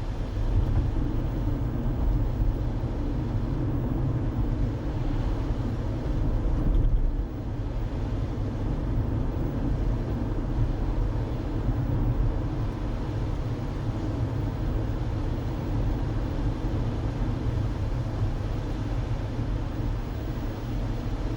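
Steady low rumble of a car being driven, road and engine noise heard from inside the car. It swells briefly about six to seven seconds in, then drops back.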